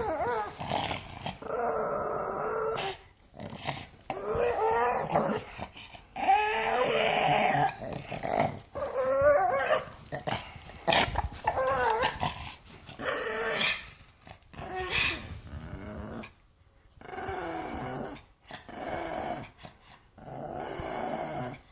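A pug growling in repeated bouts of a second or two each, the pitch wavering up and down, with short pauses between.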